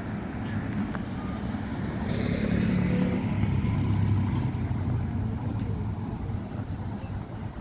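A motor vehicle's engine running as it passes close by, growing louder to a peak about three to four seconds in and then fading, over steady street traffic noise.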